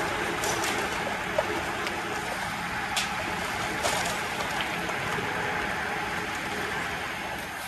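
Large demolition excavator running as its grab tears into the timber and brick of an old building, with a steady crackle of splintering wood and falling debris and a few sharp cracks and knocks.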